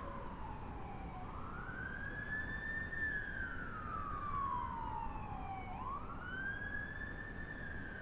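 Emergency vehicle siren in a slow wail, its pitch rising quickly and falling slowly, twice over, above a low steady background noise.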